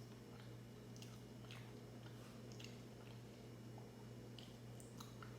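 Faint chewing of pancakes with strawberries and whipped cream: soft scattered mouth clicks and wet squishes over a low steady hum.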